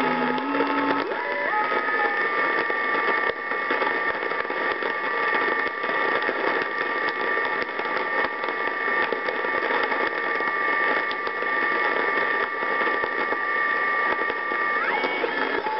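National NC-57M receiver's speaker playing longwave nondirectional beacon signals as steady whistling beat tones over a hiss of static. A tone rises in pitch about a second and a half in, and another near the end, as the dial is turned.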